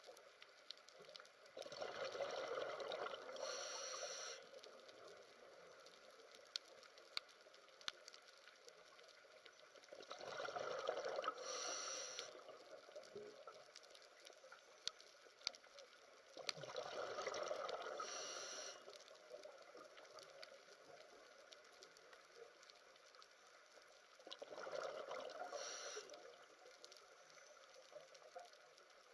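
Scuba diver breathing through a regulator underwater: four rushes of exhaled bubbles, each about two seconds long, every seven to eight seconds, with faint scattered clicks in between.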